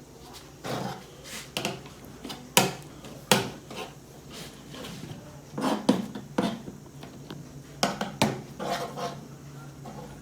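Utensils and dishes clattering, with a run of irregular knocks and several sharp clacks.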